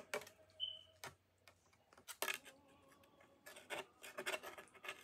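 Pipe cleaners rubbing and scraping as a green pipe cleaner is worked through a woven red pipe-cleaner purse: irregular scratchy rustles and clicks in short clusters.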